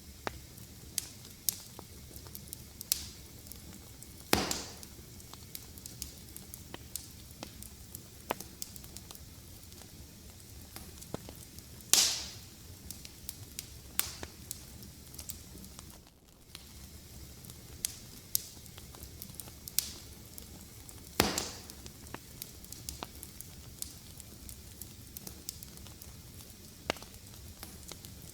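Wood fire in a fireplace crackling, with a steady low hiss, frequent small snaps, and three louder pops about four, twelve and twenty-one seconds in.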